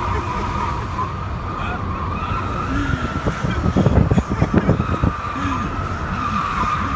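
Car tyres squealing in a long, wavering whine as the car is driven hard through a bend, over the engine and road rumble inside the cabin. Between about three and a half and five seconds in there is a quick run of low thumps.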